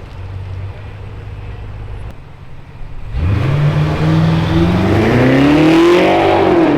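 BMW X5M F85's twin-turbo V8 through a Fi Exhaust catback: a low steady idle, then about three seconds in a hard acceleration, the note climbing steadily before easing off near the end.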